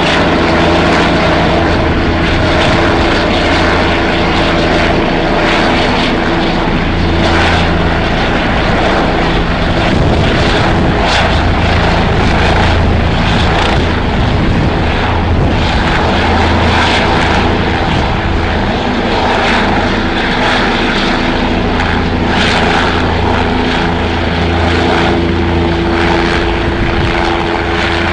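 Steady drone of a firefighting helicopter's engine and rotor, with a few low hum tones held throughout.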